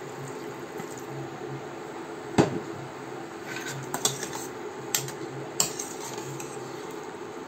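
Steel spoon stirring chopped bottle gourd and tomato in an aluminium pressure cooker, clinking and knocking against the pot a few times, loudest about two and a half seconds in, over a steady low hum.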